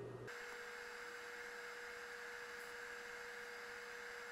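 Faint steady electrical hum with hiss: one held mid-pitched tone over a soft noise floor.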